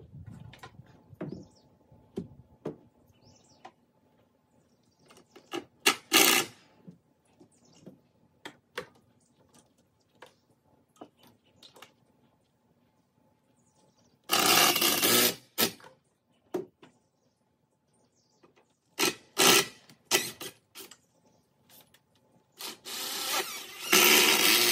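Handheld power drill driving screws into a wooden framing board in bursts: a short run about six seconds in, a longer one past the middle, two quick ones a few seconds later, and a run of about two seconds near the end. Light knocks and handling clicks sound in between.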